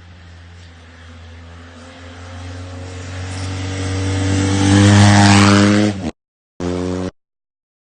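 Motorcycle engine running at a steady pitch, growing steadily louder over about five seconds, then cut off abruptly about six seconds in, with a brief half-second snatch of it again a moment later.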